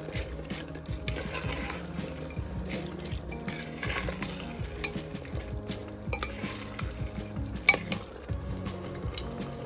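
A plastic spoon stirring split chickpeas (chana dal) through a thick tomato masala in a deep pan on the heat, with wet scraping and a light sizzle. Short clicks against the pot run through it, and the loudest is a sharp knock about three-quarters of the way through.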